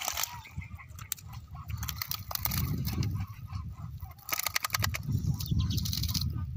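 Freshly caught tilapia flapping and slapping in a bucket and in the cast net as they are picked out by hand. They come as a few bursts of quick, sharp clicks over a low rumble.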